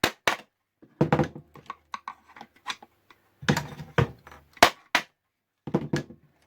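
A series of sharp knocks in irregular clusters, some single and some in quick runs, from whacking on a Roberts R717 radio's plastic case to force out a stuck, seemingly glued-in part.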